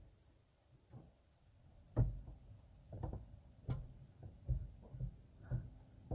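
Dull knocks and clunks of a fan clutch being worked by hand back into place behind a plastic fan shroud. After a quiet first two seconds, about five knocks come roughly a second apart.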